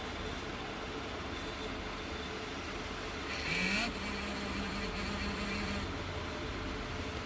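Steady road-vehicle noise, with a brief louder burst about three and a half seconds in, followed by a low steady tone held for about two seconds.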